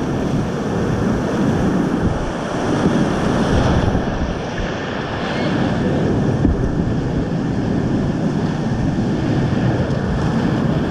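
Whitewater of a river rapid and waterfall rushing and churning close around a kayak, a steady loud roar with buffeting on the microphone.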